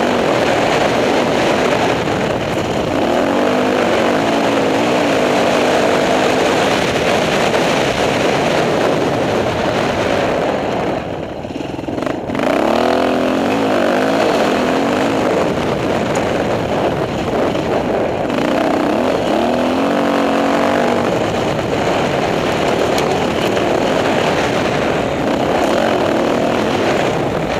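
Dirt bike engine running under way, its revs rising and falling with the throttle, over a steady rush of wind noise. About eleven seconds in the engine drops off briefly, then picks up again.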